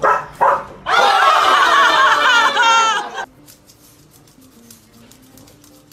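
A dog barking a couple of times, then loud overlapping laughter and shrieking from several people for about two and a half seconds, cut off abruptly.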